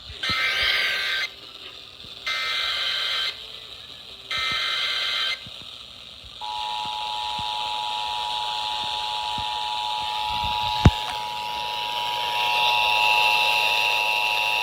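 Emergency Alert System alert heard over a radio with background hiss: three short bursts of SAME header data tones, each about a second long with pauses between, then the steady two-tone attention signal starting about six seconds in. A single sharp click sounds near eleven seconds. The alert is for a National Weather Service severe thunderstorm warning.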